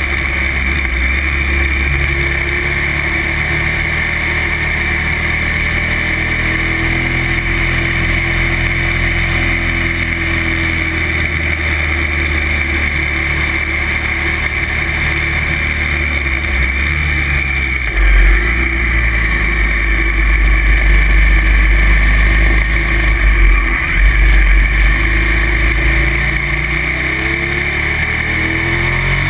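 Motorcycle engine running at road speed, mixed with wind noise on the bike-mounted camera's microphone. From about eighteen seconds in, a deep rumble grows louder for several seconds, and near the end the engine pitch rises as the bike accelerates out of a bend.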